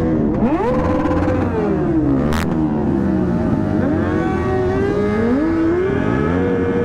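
Several motorcycle engines revving at once, their pitches climbing and falling and overlapping, with one short sharp crack about two and a half seconds in.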